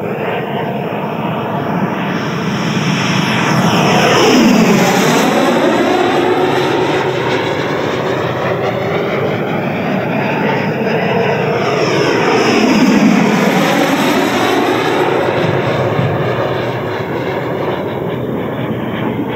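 Electric ducted fan (JETFAN-120 PRO with a HET Typhoon motor) of a radio-controlled jet model running at high power in flight. It makes two passes, loudest about four and thirteen seconds in, and the tone sweeps down and back up as the jet goes by each time.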